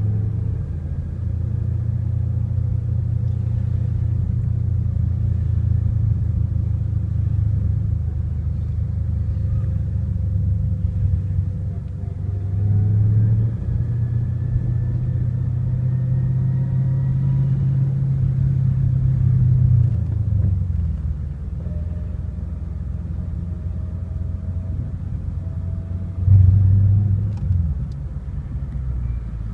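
Twin-turbocharged 2011 Ford Mustang engine heard from inside the cabin while driving at low rpm and light throttle, off boost: a steady low drone that swells a few times, most sharply about 26 seconds in. Faint rising whines sound at times.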